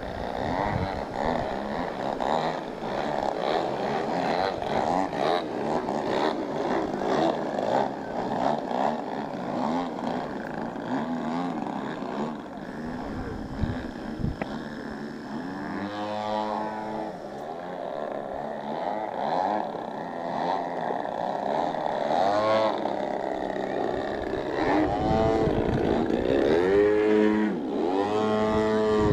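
Radio-controlled model airplane engines buzzing as the planes fly demonstration passes. Through the second half, several close flybys each swing up and then down in pitch.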